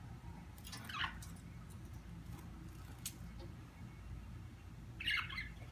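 Pet budgerigars giving short chirps: one falling chirp about a second in and a brief flurry of chirps near the end, with a faint click in between.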